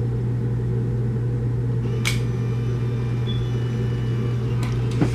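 Steady low hum throughout, with one sharp click about two seconds in, the shutter of a Fujifilm instant camera being pressed for a selfie, and two fainter clicks near the end.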